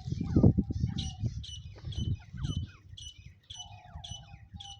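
Teetar (partridge) calling with short, high chirps repeated about twice a second, over low thumps during the first few seconds.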